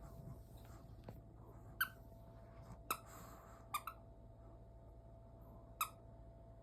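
A squeaky dog toy squeezed by a chihuahua, giving five short squeaks at uneven intervals, two of them in quick succession near the middle, over a faint steady hum.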